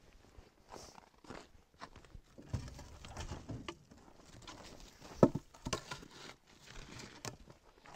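Footsteps in snow and pieces of split maple firewood being handled and set onto a stack, a series of scattered wooden knocks and shuffles, with one sharp knock about five seconds in.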